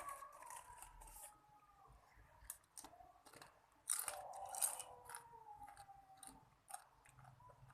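A young child whimpering softly in two drawn-out, slowly falling whines, the second about four seconds in, with short crackling clicks in between.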